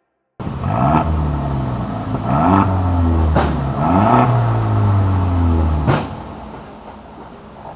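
Geely Monjaro's 2.0-litre turbo four-cylinder engine revved in about four throttle blips through its modified valved sports exhaust, the pitch rising and falling with each blip. About six seconds in it drops back to a quieter idle.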